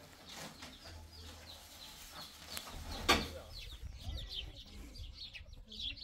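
Birds chirping, a dense run of short, high chirps from about halfway on. Before that there are a few sharp clicks and knocks, the loudest about three seconds in.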